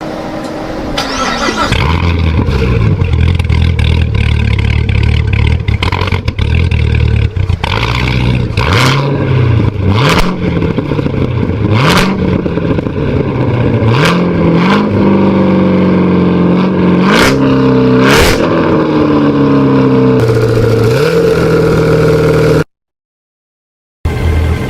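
Race car engine sound effect: the engine starts and settles into a low, steady idle, then revs up and drops back again and again with sharp clicks between the revs. It cuts out completely for about a second and a half near the end before coming back in.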